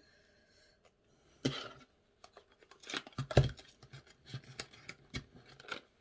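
Clicks, taps and scrapes of a mascara tube and its small cardboard box being handled. The first second or so is quiet, then the taps come in a string, the loudest about three and a half seconds in.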